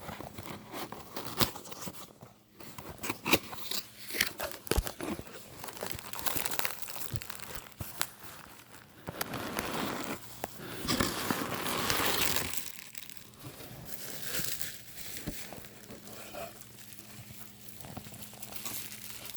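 A present being unwrapped by hand: paper and packaging torn and crumpled in irregular rustles and crackles, with a longer stretch of tearing and crinkling about halfway through.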